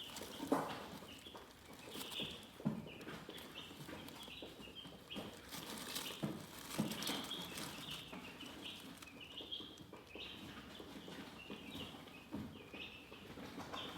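Chickens chirping: many short, high peeps in quick succession, with a few soft knocks among them.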